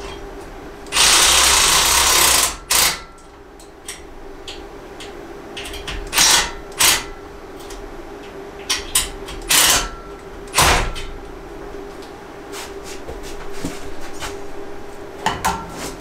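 Cordless drill/driver run in bursts, driving screws: one long run of about a second and a half near the start, then a string of short trigger pulls.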